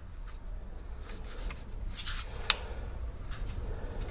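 Hands handling the plastic case of box-style FPV goggles: soft rubbing with a few small ticks, and one sharp click about two and a half seconds in.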